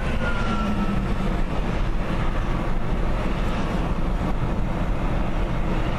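Steady road and engine rumble heard inside the cabin of a car moving slowly in traffic.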